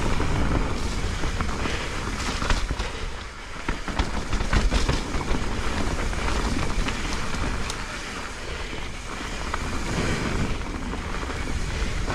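Mountain bike riding a wet, muddy trail: tyres rolling through mud, with many small clicks and rattles from the bike and wind rumbling on the microphone.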